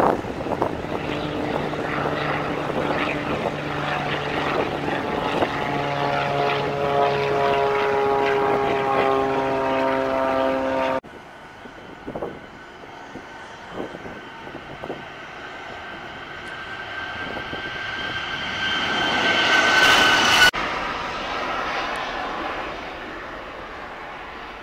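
Jet airliner engines at close range: an Airbus A321 rolls on the runway with a steady engine whine of several tones, which cuts off abruptly about 11 s in. A Boeing 737 then takes off, its engine noise swelling to a loud peak with a high whine before dropping away as it climbs out.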